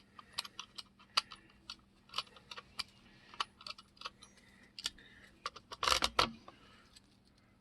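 Irregular light metallic clicks and clinks, with a louder rattle about six seconds in, as the bar wrench and chain of a Salem Master 3816s chainsaw are handled while its chain tensioner is backed off during assembly.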